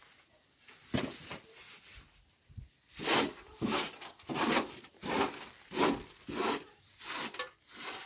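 Rhythmic wiping and scraping strokes as a cloth is rubbed back and forth along the dusty bottom of a feeding trough, about one and a half strokes a second from about three seconds in, after a single scrape about a second in.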